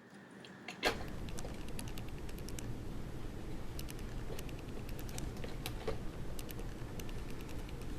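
Kitchen knife working a bell pepper on a cutting board: scattered light clicks and taps at an irregular pace, with one sharper click a little under a second in.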